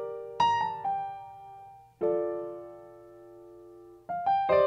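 Piano-toned keyboard chords opening a hip-hop beat. Each chord is struck and left to ring and fade, with a new one about every two seconds and a few quick single notes about half a second in and again near the end.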